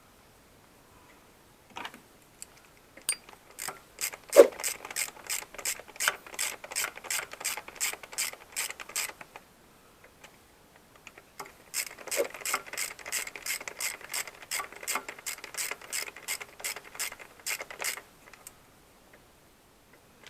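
Socket ratchet clicking in two long runs, about four clicks a second, as two T25 Torx screws are driven in one after the other to fasten a new PCV valve on the engine.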